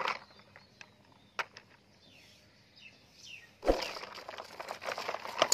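Plastic toy trucks being handled: a few light clicks, then about three and a half seconds in a loud plastic knock followed by rattling and scraping as the toys are moved about.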